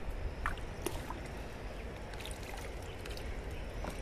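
Light drizzle falling steadily on a wet terrace, with scattered small drips and taps through it.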